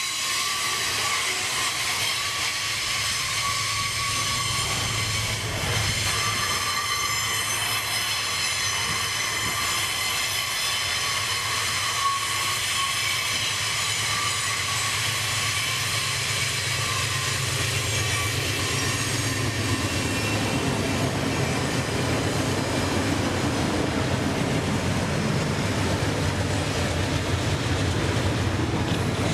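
Freight train of hopper wagons rolling past on a curve: a steady rumble of steel wheels on rail with a high squeal of wheels ringing above it. In the last third a deeper diesel locomotive engine drone grows louder as the locomotives come by.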